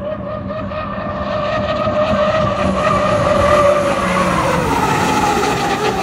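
Unlimited hydroplane's turbine engine whining at racing speed over the hiss of its spray. The whine grows louder, then falls in pitch from about four seconds in as the boat passes by.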